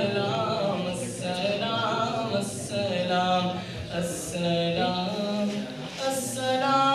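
A young man's voice sings an Arabic naat unaccompanied, with long held notes that bend in pitch and a sharp 's' sound about every second or so.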